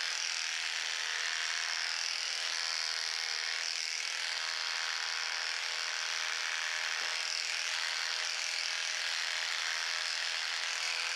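Electric horse clippers running steadily, their blades gliding through a horse's body coat as a clip line is cut.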